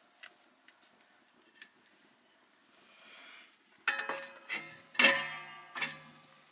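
A steel bowl set upside down over a metal wok as a lid, clanking against the rim about four times with a ringing metallic tone. Before that, faint taps of a spatula in the wok.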